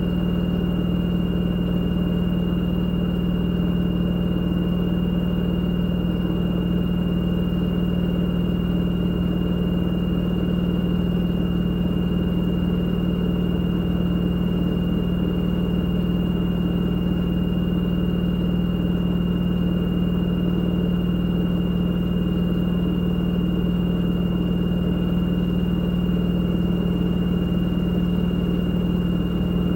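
LG direct-drive front-loading washing machine spinning at a steady high speed during a spin-only cycle: a constant hum with a thin high whine over it, not changing in pitch or level.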